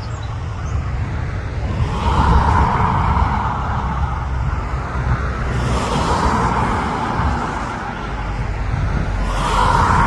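Wind buffeting the phone's microphone, a heavy low rumble, with a rushing noise that swells and fades three times, about two, six and nine and a half seconds in.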